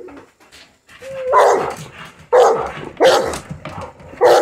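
A dog barking excitedly, four loud barks about a second apart, the first starting with a short rising whine.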